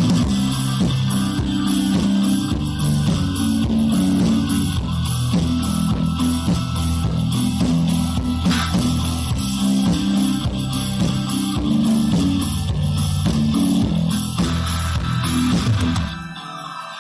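Instrumental background music with guitar and bass playing steadily. It drops to a quieter level about sixteen seconds in.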